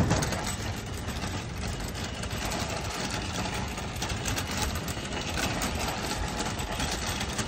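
Metal shopping cart loaded with grocery bags being pushed across an asphalt parking lot: the wheels rolling and the wire basket rattling steadily.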